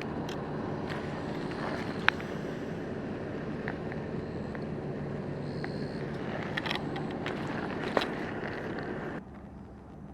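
Steady outdoor background noise with a low hum, broken by a few sharp clicks; the level drops suddenly about nine seconds in.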